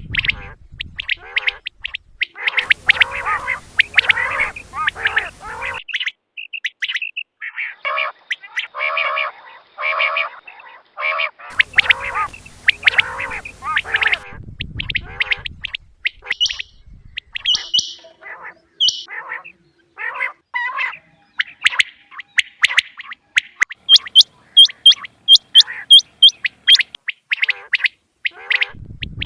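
Quail, male and female, calling over and over in quick series of short notes, with higher, louder notes in the last third.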